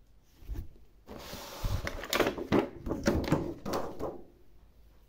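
Cardboard toy boxes and plastic packaging being handled: a run of rustles and knocks, loudest from about one to four seconds in.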